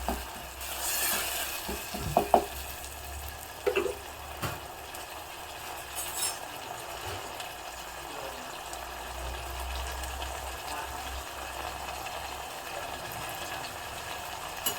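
Tomato and green chilli frying in coconut oil in a pan, with a steady sizzle. In the first few seconds there are a few sharp clinks of the stirring spoon against the pan.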